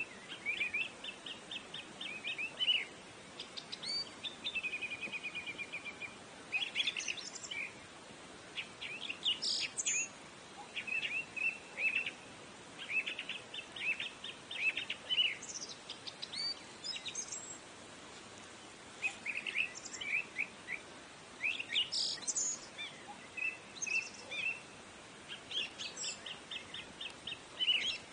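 Small songbirds chirping and twittering in quick runs of short high notes, over a faint steady hiss, with a couple of short lulls.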